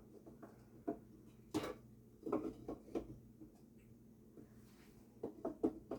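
Irregular knocks and light taps of wooden slats being handled and tried in an antique cash register drawer, the loudest knock about one and a half seconds in and another run of taps near the end.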